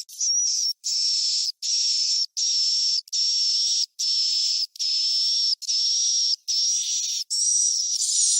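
Recorded swiftlet roosting call ('suara inap'), a lure sound for swiftlet nesting houses: about ten short, high chirps in a row, each just under a second long, with brief gaps between.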